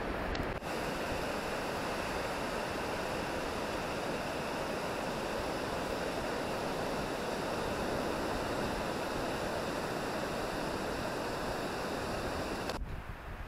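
Surf breaking and washing up a flat sandy beach: a steady, even rushing hiss. It cuts off abruptly near the end, giving way to a duller noise.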